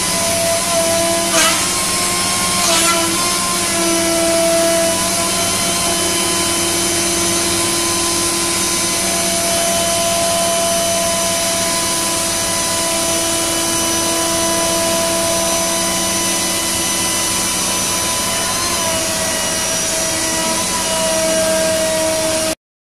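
Robot-mounted router spindle running as it trims a moulded plastic part: a steady machine whine with a few shifting tones, and two short clicks about a second and a half and three seconds in. It cuts off suddenly near the end.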